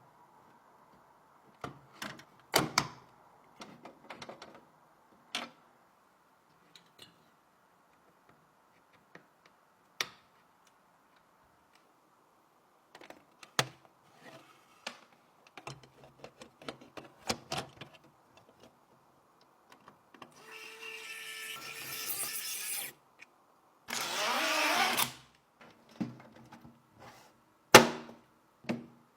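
Clicks, taps and knocks of computer parts being handled and fitted together, with two short noisy bursts a little past the middle, the second louder and briefer.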